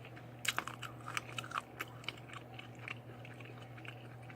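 Close-miked chewing and biting of food, with wet mouth clicks and smacks, several in quick succession over the first two seconds and sparser after, over a steady low hum.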